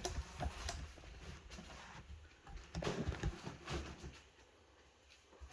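Hand pipe-crimping tool being worked on a pipe fitting: irregular clicks and knocks of metal on metal, going quiet for about a second near the end.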